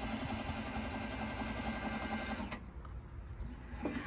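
Electric lift motor of a portable self-lifting pallet stacker running steadily as the forks rise, a fast even whir that cuts off abruptly about two and a half seconds in as the forks reach their highest point. A few faint clicks follow near the end.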